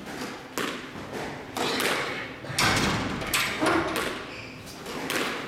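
Several irregular thuds and knocks ring out around the squash court, each with a short echo off the walls.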